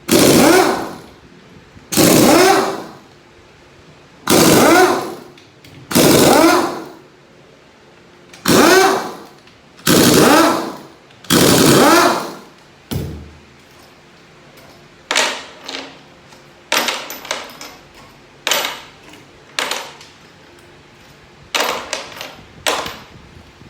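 Power tool with a T30 Torx bit running out the large bolts of a ZF 6HP21 transmission's valve body. It comes in about seven bursts of around a second each, roughly every two seconds, then shorter, quicker bursts in the second half.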